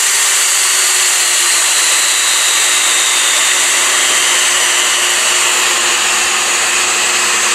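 Corded electric die grinder running free with no load, its motor whine falling slowly and steadily in pitch as a router speed control turns it down from full speed.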